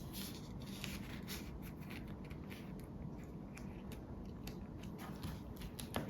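Faint scratchy rustling and light scattered ticks of hands handling a sticker and the plastic pages of a photocard binder, over a low room hum.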